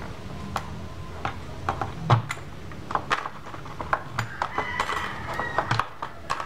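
Irregular small clicks and scrapes as the hands of a quartz wall clock are worked loose and pulled off their centre spindle by hand. The sharpest click comes about two seconds in, and a brief scrape follows around five seconds, over a steady low hum.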